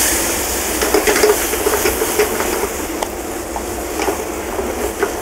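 White wine sizzling and hissing in a hot sauté pan of shrimp and vegetables as the pan is deglazed, with many small crackles. The hiss is loudest at the start and slowly dies down.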